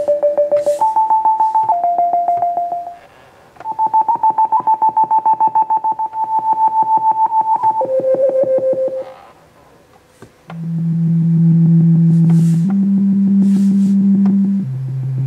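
Zeppelin Design Labs Macchiato mini synth playing single notes from its touch keyboard, the higher notes pulsing rapidly under its LFO. After a short pause, lower, steadier notes follow for the last few seconds.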